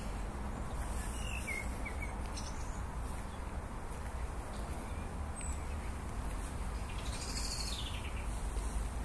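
Small birds chirping in a few short, scattered calls high over a steady low rumble.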